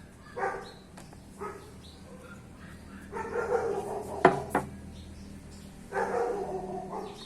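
A dog barking in bouts of pitched calls, some short and some drawn out to about a second. Two sharp knocks come a little past the middle.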